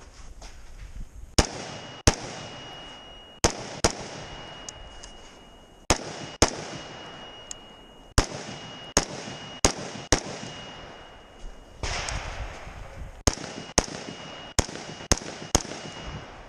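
Rifle shots fired in a stage of a practical shooting course of fire, about sixteen sharp reports, mostly in pairs about half a second apart with pauses of a second or more between pairs.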